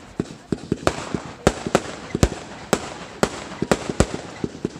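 Fireworks going off in a rapid, irregular string of sharp bangs, two or three loud ones a second with smaller cracks between them.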